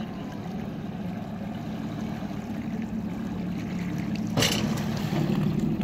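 Jet ski engine running at low speed, a steady drone that grows louder as the craft comes closer, with water washing around the hull. A short burst of noise about four and a half seconds in.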